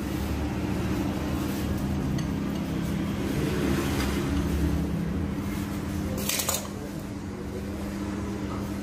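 Bowls and dishes being handled on a tabletop, with light clinks and scrapes over a steady low hum; a short, sharp clatter about six seconds in.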